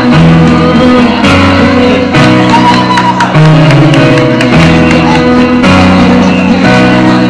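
Live band music, very loud: keyboard chords changing about once a second under girls' voices singing into microphones.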